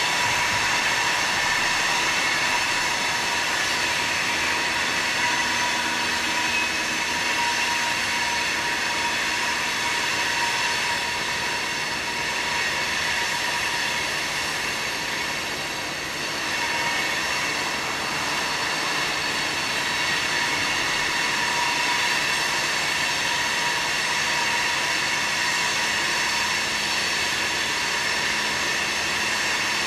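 Coal train wheel flanges squealing as the cars roll through a curve: a loud, steady, high-pitched squeal of several shrill tones at once, easing slightly about halfway through.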